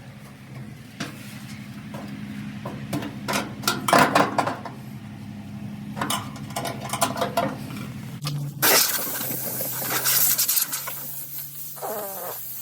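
Metal clinks and knocks from dryer parts being handled, over a steady low hum. About nine seconds in, a loud hiss starts and carries on.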